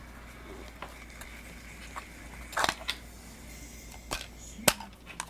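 A few sharp clicks and knocks of hard plastic toy pieces being handled, the loudest about halfway through and another just before the end.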